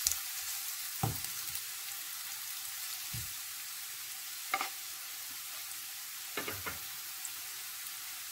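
Sliced champignon mushrooms sizzling steadily in oil in a frying pan. A wooden spatula stirs them, knocking against the pan a handful of times, the last near the end.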